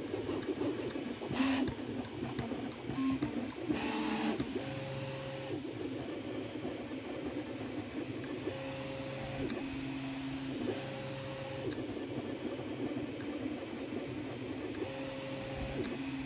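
Original Prusa Mini 3D printer printing. Its stepper motors chatter through quick, short moves for the first few seconds, then sing steady tones that jump to a new pitch every second or so as the print head makes each new move.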